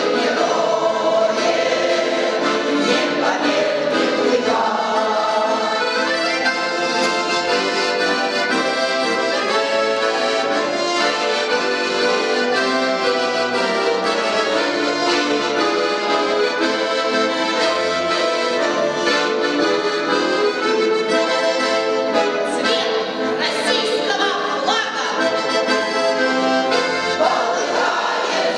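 Accordion playing a tune at a steady level, with a choir singing along at times.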